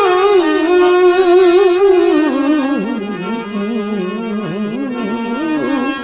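Devotional bhajan music: a single melody line with a wide, wavering vibrato that slides slowly down in pitch, over steadier held accompanying tones.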